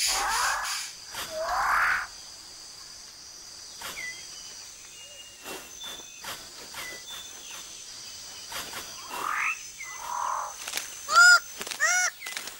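Rainforest birds calling over a faint, steady insect drone. Two rising, sweeping calls open it, a few short whistles follow, and near the end come loud repeated ringing calls, each rising and falling in pitch, about three every two seconds.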